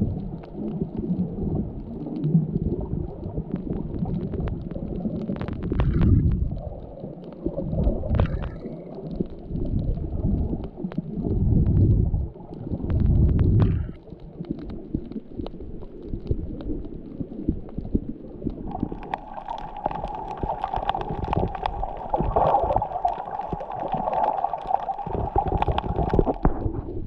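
Muffled underwater noise picked up by a GoPro in its waterproof housing while snorkeling: low swells of water sound rise and fall every couple of seconds. About two-thirds of the way in, a steadier mid-pitched hum joins them.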